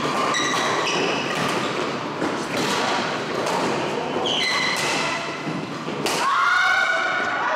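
Badminton doubles rally in a large echoing hall: rackets strike the shuttlecock about five times, a second or more apart. Between the hits, shoes squeak briefly on the court mat and feet thud.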